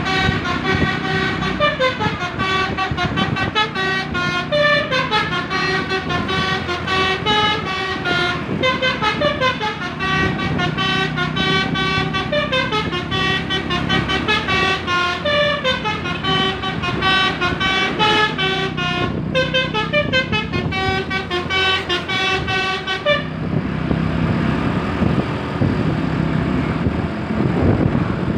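Basuri V3 multi-tone 'telolet' bus air horn playing a melody, several notes sounding together and stepping up and down in pitch. It stops about 23 seconds in, leaving the bus engine running.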